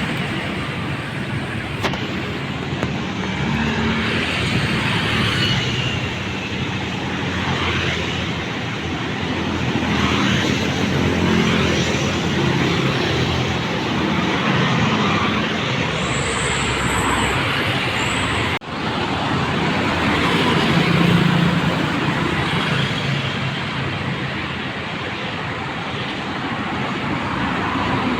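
Steady road traffic, with cars and other vehicles passing one after another in swells.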